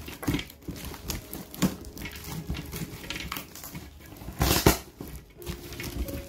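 A cardboard box being handled and opened: irregular rustling, scraping and crinkling, with a louder burst about four and a half seconds in.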